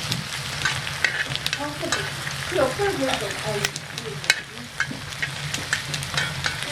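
Food sizzling in a hot pan, a steady hiss with many sharp spattering pops.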